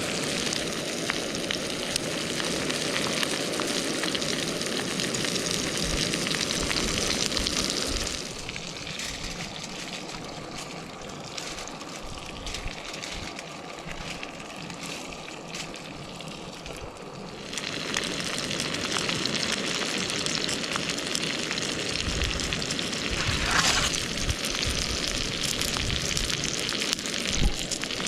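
Food sizzling and frying in a hot pan, a dense crackling hiss that drops quieter for about ten seconds in the middle and then picks up again.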